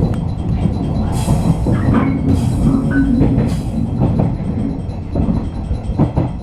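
Running noise of a 113-series electric multiple unit heard from inside its leading car as it pulls into a station: a steady rumble of wheels on rail. About 1 to 4 seconds in come three short hissing bursts and brief squeals.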